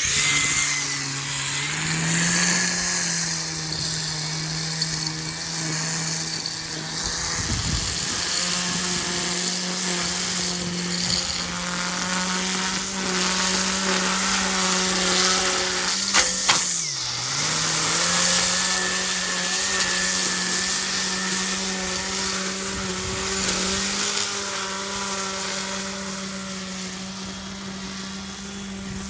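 Ego battery-powered multi-tool with a line-trimmer head, running steadily with an electric motor whine. Its pitch rises slightly about two seconds in, dips sharply for a moment about halfway through after a couple of sharp clicks, then recovers.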